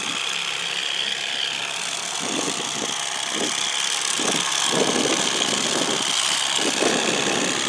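Boat motor running steadily at trolling speed, with a few short, irregular knocks and rustles over it.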